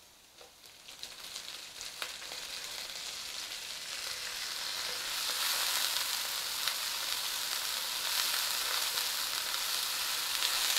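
Chopped parsley sizzling in hot olive oil and garlic in a wok as it is stirred with a wooden spatula. The sizzle builds over the first few seconds into a steady hiss, with a couple of knocks of the spatula against the pan near the start.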